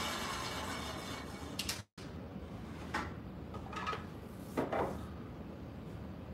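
Table saw coasting down after a cut, its whir fading over the first couple of seconds. Then a few light knocks and clatter of the cut wooden pieces being picked up off the saw table.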